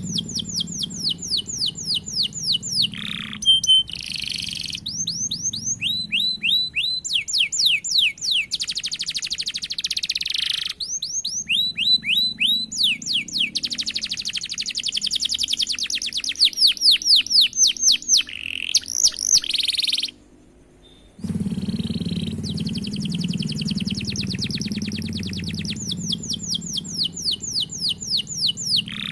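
Domestic canary singing in long, rapid trills (rolls) of repeated high notes, one phrase after another. The song cuts off suddenly for about a second about two-thirds of the way through, then resumes.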